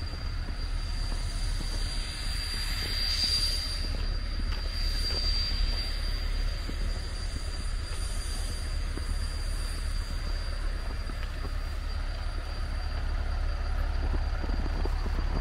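Snowy street ambience: a steady low rumble with a faint steady high whine, and soft swells of tyre hiss from vehicles on the slushy road a few seconds in.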